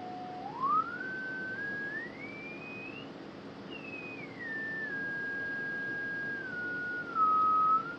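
Kenwood TS-940S receiver's calibration marker heard through its speaker as a pure beat tone that follows the tuning knob. The pitch steps up from a low whistle to a high one, vanishes for a moment at the top, then steps back down to a middle pitch, over a faint steady hum. The tone is briefly louder near the end.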